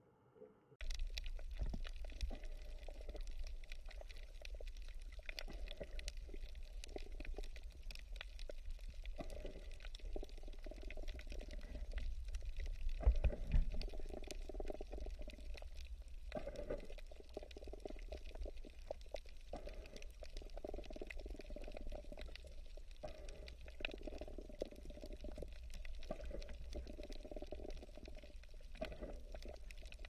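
Aquarium water bubbling and gurgling over a low rumble, starting abruptly about a second in.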